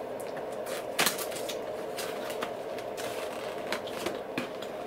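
Packing tape being pulled off a cardboard box and the box flap opened: scattered short clicks and crackles, the loudest about a second in, over a steady hum.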